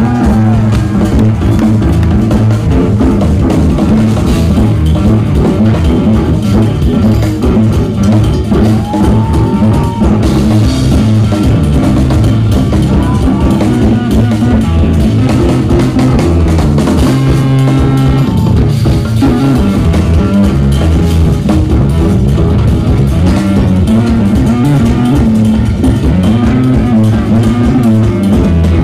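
A jazz-fusion band plays live: drum kit, bass, electric guitars and keyboards in a dense, loud, continuous groove, with one gliding lead note about nine seconds in.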